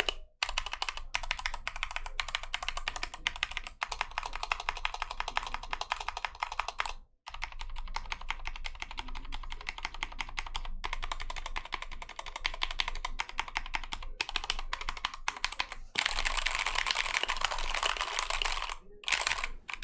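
Typing on a Keychron K2 (V2) mechanical keyboard with Gateron Red linear switches: a fast, steady stream of key clacks, with a short pause about seven seconds in and another near the end. For the last few seconds the typing gets louder and denser.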